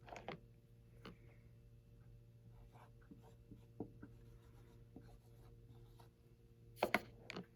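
Faint scratchy strokes of someone writing by hand, scattered through, over a low steady hum. A couple of louder short sounds come about seven seconds in.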